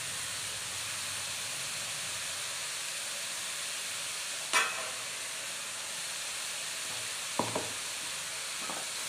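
Grated carrot stir-fry sizzling steadily in a metal pan on the stove. A sharp click comes about four and a half seconds in, and two softer knocks near the end.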